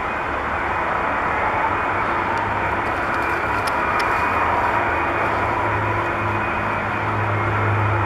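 Airbus A330 airliner on final approach with gear down, its twin jet engines giving a steady rushing drone with faint whining tones, growing a little louder as it comes closer.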